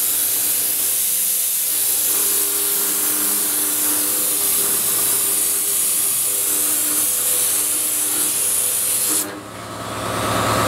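4-axis Bridgeport CNC milling machine cutting a laminated wooden plinth with a spinning end mill: a loud, steady hiss with faint steady tones beneath it. The hiss cuts off suddenly about nine seconds in, and a lower machine hum builds up near the end.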